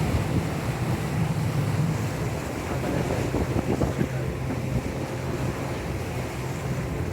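Boat motor running steadily with a low hum, under wind buffeting the microphone and waves on the sea.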